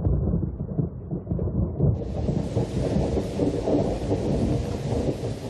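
Thunder rumbling. About two seconds in, a steady hiss of rain comes in on top of it.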